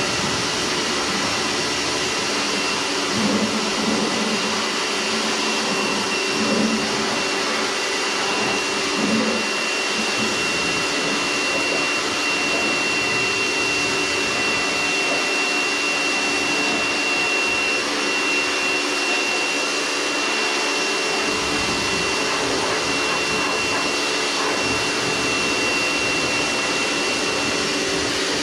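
Kärcher electric pressure washer running steadily, its pump motor giving a steady high whine under the hiss of the water jet spraying a motorcycle.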